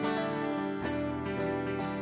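Instrumental intro music, with a new note about every half second.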